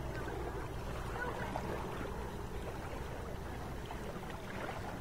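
Lakeshore ambience: a steady low rumble with a wash of water-like noise and faint, distant voices.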